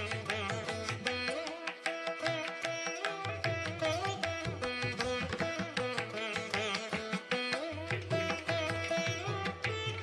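Background music in a South Indian classical style: plucked string melody over hand-drum strokes.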